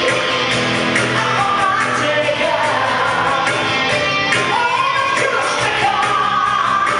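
Live band music: a woman singing over acoustic guitar, cajón and electric bass, with a steady percussion beat.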